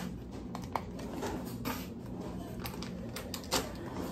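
Plastic MRE pouch packaging crinkling and clicking as it is handled, a string of small irregular crackles with a slightly louder one near the end.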